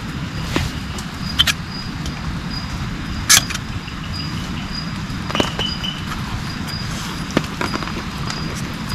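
Outdoor forest ambience: a steady low rumble and hiss, scattered sharp clicks and pops with the loudest about three seconds in, and an insect chirping in a steady high pulse.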